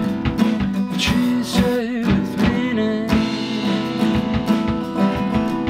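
A rock band's music: a man singing over electric guitar and a drum kit keeping a steady beat.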